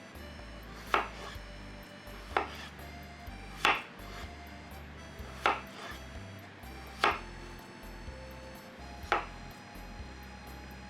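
Kitchen knife chopping vegetables on a cutting board: six slow, separate chops, one every one to two seconds.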